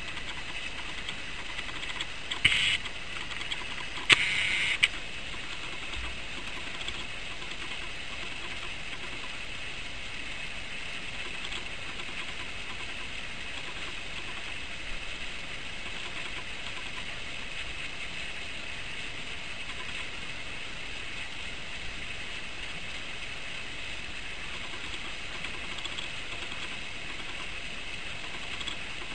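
Steady background hiss, with two brief louder noises about two and four seconds in.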